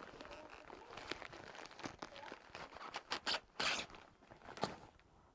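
A taped-up package being opened by hand: tape and packaging tearing and crinkling in irregular rips, the longest and loudest about three and a half seconds in, followed by a sharp crack.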